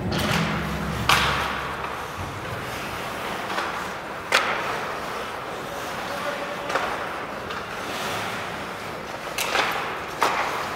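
Ice hockey play in a rink: sharp cracks of sticks and puck, some against the boards, over the scrape of skates and players calling out. Rink music carries on briefly and stops about two seconds in.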